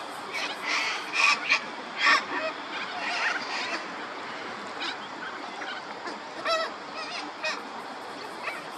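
Waterfowl calling: a run of short, loud calls over the first two seconds, then a few scattered wavering calls, the clearest about six and a half seconds in.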